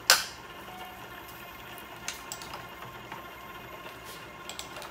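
Metal hand tools handled on a milling machine's table. A single loud, sharp knock comes right at the start as a tool is set down, then a few lighter clicks and taps, over a steady background hum.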